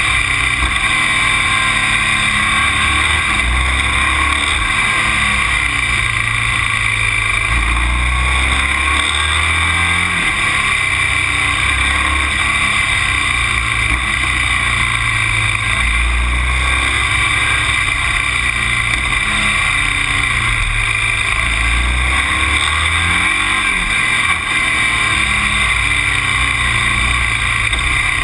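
A motor vehicle driving along a road: a loud, steady running sound of engine and road noise, with uneven low rumble underneath.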